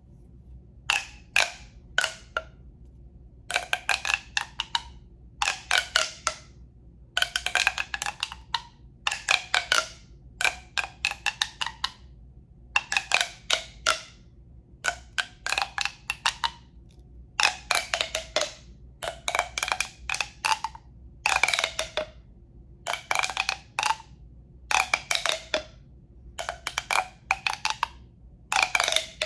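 A tube being tapped for relaxation sounds: quick clusters of taps, roughly one cluster a second, each tap ringing briefly.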